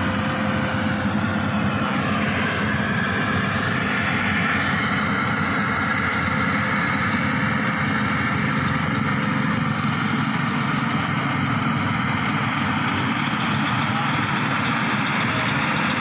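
Maxxi Bimo 110 Plus rice combine harvester running steadily as it cuts and threshes standing rice, a constant engine and machinery drone.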